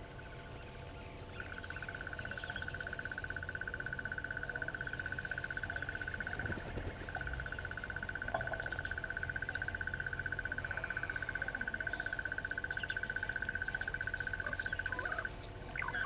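A steady, rapidly pulsing high trill from an animal, dropping out briefly twice, with a few short bird chirps over it.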